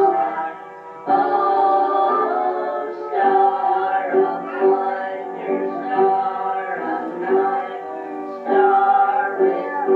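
Singing with musical accompaniment: a slow song of long held notes, with a short drop in level about a second in.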